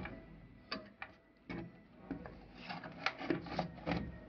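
Irregular clicks and knocks from hands working the large pulley of a wet grinder's drum shaft: a few separate knocks, then a quicker cluster of clicks and rubbing in the second half.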